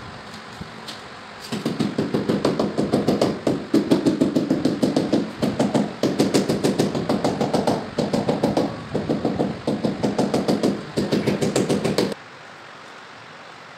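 A hammer tapping rapidly on ceramic wall tiles, several taps a second in runs with short breaks, bedding the tiles into their adhesive. The tapping stops abruptly near the end.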